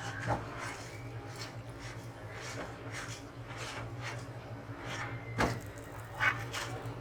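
Roti being pressed and roasted around its edges on a hot tawa: soft repeated scuffing strokes and two light knocks, one just after the start and one about five and a half seconds in, over a steady low hum.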